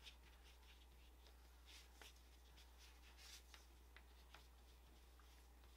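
Near silence: faint scratchy strokes of a wet watercolor brush on paper, a few light ticks over a low steady hum.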